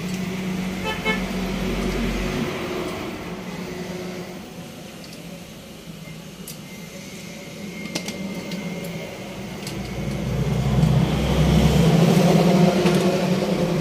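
A motor vehicle engine running with a steady low hum that swells louder about ten seconds in, with a few light clicks in between.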